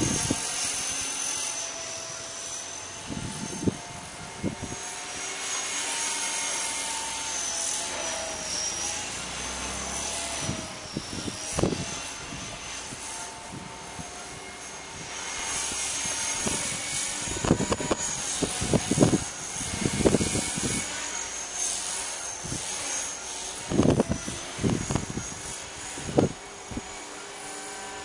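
Blade 300X electric RC helicopter flying: a steady high-pitched whine from the motor and rotor that wavers a little in pitch as the pilot works the controls. Gusts of wind buffet the microphone with repeated low thumps, most in the second half.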